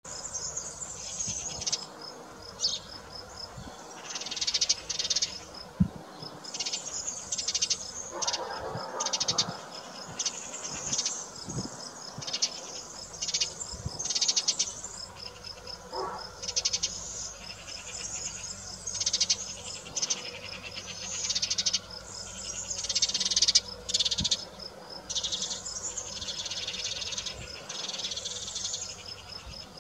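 Insects stridulating: short raspy buzzes that repeat every second or so, over a faint steady high chirping, with a couple of soft knocks.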